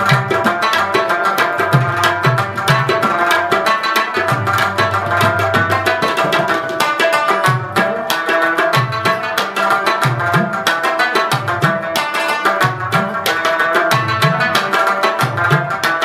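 Background instrumental music with a fast drum rhythm, low drum strokes that swoop up in pitch, and a held melodic line over them.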